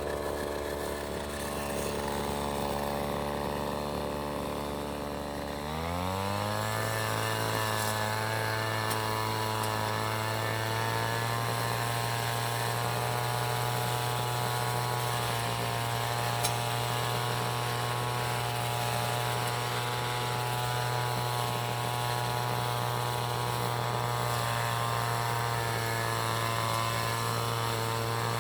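A nearby engine idling in street traffic. About six seconds in, its pitch rises quickly and it settles at a steady, higher engine speed.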